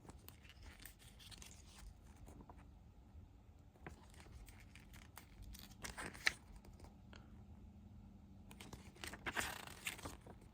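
CD and DVD packaging being handled and unwrapped: scattered light clicks and rustles, a sharp click about six seconds in and a longer rustle near the end.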